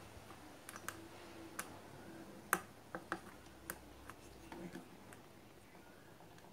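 Light, scattered clicks and taps from small parts being handled, about eight or nine in all, with the loudest about two and a half seconds in.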